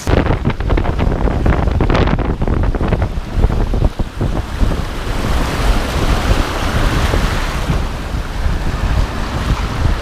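Gale-force wind buffeting the microphone with a heavy low rumble, over storm waves crashing and washing ashore. Sharp gusts and hits come thick for the first few seconds, then a broad hiss of surf and spray takes over.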